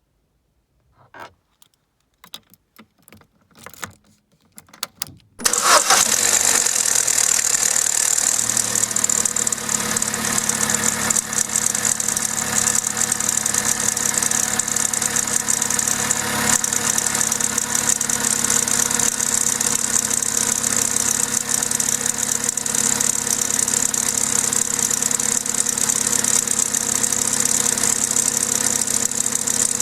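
A few light clicks, then the Vauxhall/Opel A14XER 1.4-litre inline-four petrol engine starts about five and a half seconds in and runs at a steady idle, its pitch settling a couple of seconds later. It runs with the start-up timing-chain rattle that a garage called normal for this engine, but the chain later jumped a tooth.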